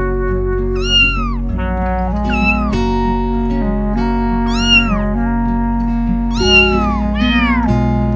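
Cat meows, about five of them, each rising and then falling in pitch, over steady background music.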